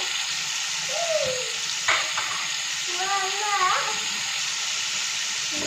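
Flour-coated chicken pieces deep-frying in hot oil in a wok: a steady, dense sizzle and bubbling.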